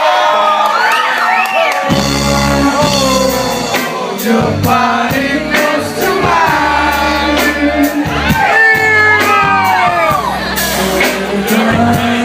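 Audience cheering and whooping in a hall, then about two seconds in a live band starts playing with bass and drums while the whoops and shouts carry on over the music.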